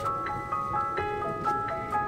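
Background music: a gentle melody of single struck notes, a few a second, with some notes held beneath them.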